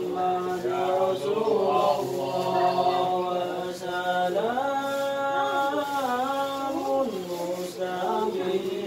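A group of men chanting a devotional sholawat together in unison, slow melodic lines with long held notes; the melody steps up in pitch about four and a half seconds in and comes back down near seven seconds.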